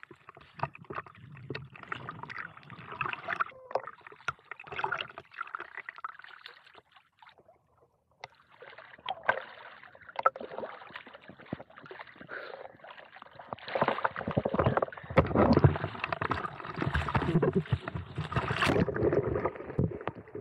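Lake water splashing and sloshing close to the microphone as a swimmer moves about and climbs back onto an eFoil board. The splashing grows louder about two-thirds of the way in.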